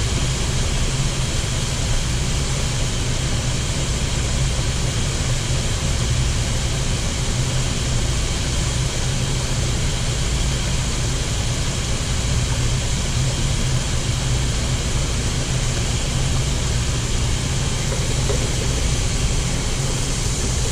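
Tempura-battered shrimp deep-frying in the oil of an electric deep fryer: a steady sizzling hiss over a steady low hum.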